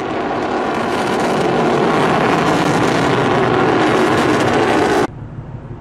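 Exhaust noise of a Long March 11 solid-fuel rocket motor during its ascent, growing louder over the first two seconds and then holding steady. It cuts off suddenly about five seconds in.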